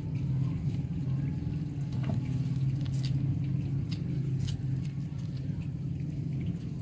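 Hands digging through wet potting soil, with soft squishes and a few crackles now and then over a steady low hum.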